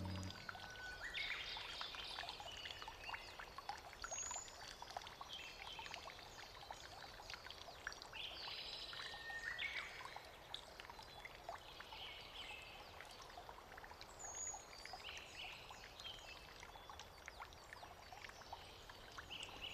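Faint garden ambience: water trickling from a bamboo spout into a stone basin, with small birds chirping every few seconds.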